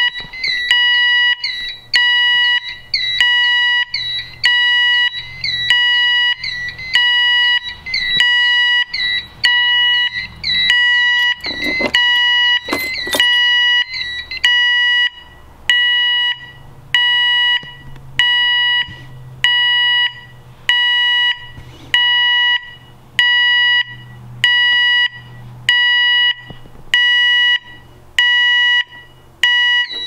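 Electronic alarm sounders set off by a medical emergency pull-cord switch: a loud beep about once a second, joined until about halfway through by a fast, higher warbling chirp tone that then stops.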